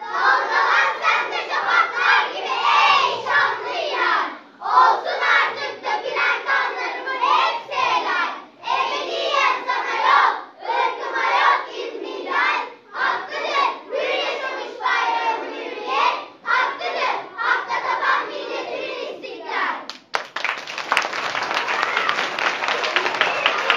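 A group of children shouting lines together in unison, in short loud phrases with brief pauses. About twenty seconds in, the audience breaks into applause.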